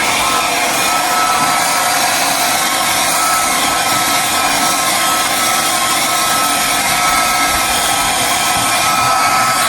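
Handheld hair dryer blowing steadily: an even rush of air with a faint steady whine.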